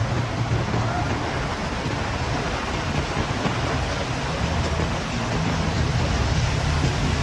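Heavy rain falling in strong wind: a steady, dense hiss over a low rumble that swells and eases.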